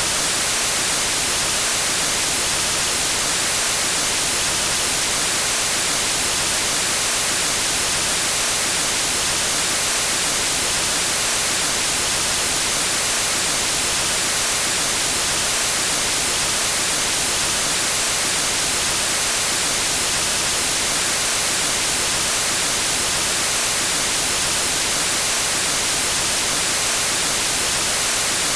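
Steady white noise, the hiss of television static, even and unchanging with most of its energy in the high end.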